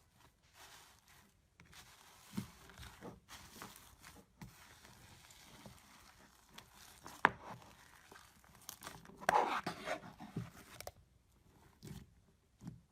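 Slime being squeezed and worked by hand, giving irregular crackles and clicks, with a sharp click about seven seconds in and a dense run of crackling between about nine and eleven seconds.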